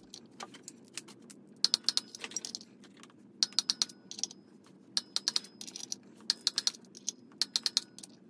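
Ratchet wrench clicking in quick runs, about five strokes' worth of rapid clicks a second or so apart, as the flex plate bolts are run down onto the crankshaft for torquing.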